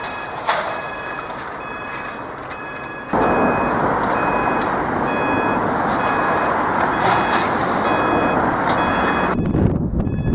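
Level crossing audible warning alarm sounding a steady repeating pattern of short electronic beeps. About three seconds in, a loud steady rushing noise comes in over the beeps and cuts off suddenly near the end.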